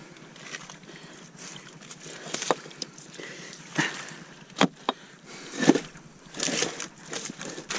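Rocks being turned over by hand among wet kelp: stone knocking against stone and kelp rustling and sloshing, with two sharp knocks a fraction of a second apart about halfway through.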